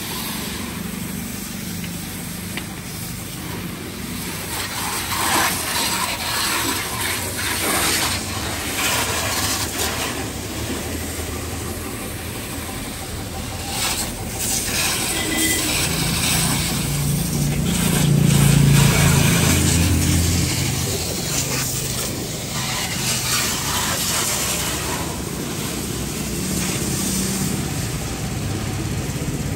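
Splashing, rushing water with a motor running underneath, the motor swelling a little past the middle.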